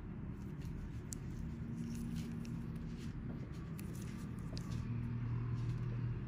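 Steady low background hum and rumble with faint light clicks scattered through it. A low steady drone grows louder for about a second near the end.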